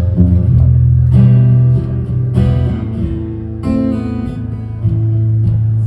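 Acoustic guitar strumming chords, a new chord struck every second or so over sustained low bass notes.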